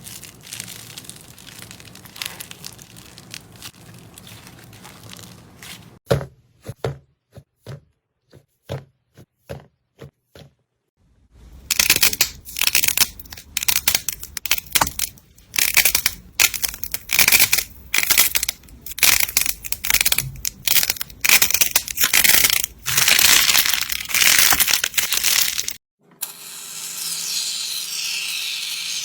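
Slime being squeezed and pressed by hand, a series of different takes: soft rubbing at first, then a string of separate sharp pops, then a long stretch of loud, dense crackling and crunching, and a steady hiss near the end.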